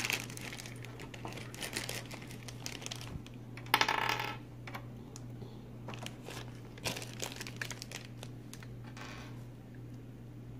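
Paper label being picked and peeled off a wax crayon: scattered small clicks and crinkles, with a short, louder tearing sound about four seconds in.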